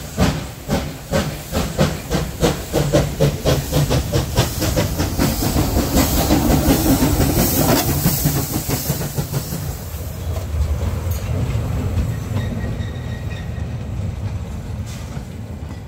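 Steam tank locomotive 378.78 pulling away from a stand and running past. Sharp exhaust chuffs quicken from about two to about four a second over steam hiss, loudest as it passes close about seven seconds in. The beats then blur into a steady running rumble that fades as it moves off.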